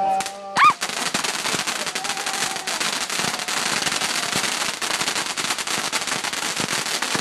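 A firework goes off with a loud pop about a second in, then keeps up a dense, rapid crackling.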